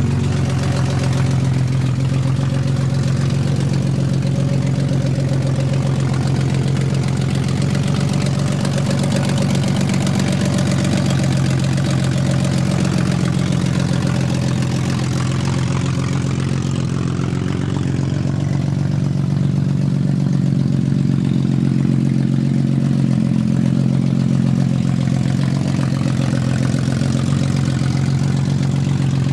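BMW M50NV inline-six engine swapped into an E30 318i, idling roughly while it warms up from a cold start. Its stored fault codes point to a bad crankshaft position sensor and a bad O2 sensor.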